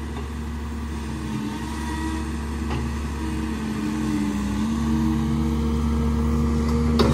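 Cat 310 excavator's diesel engine and hydraulics running as the machine works, a steady hum whose pitch wavers slightly and which grows gradually louder.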